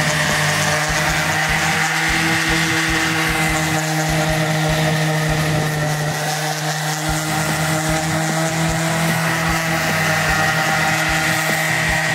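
Electric orbital sander running steadily, its pad pressed against a plastic mold full of wet concrete, vibrating the mold to work air bubbles out of the concrete.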